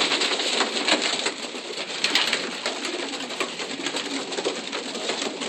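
A loft full of racing pigeons cooing together in a steady murmur, with scattered short clicks and scuffs among them.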